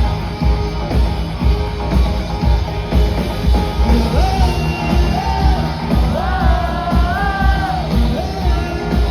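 A rock band playing live: drums and bass keep a steady beat under guitars. A sung vocal line comes in about four seconds in, with long held notes.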